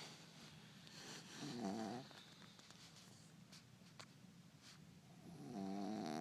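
Shih Tzu snoring: two pitched snores, one about a second and a half in and a longer one near the end.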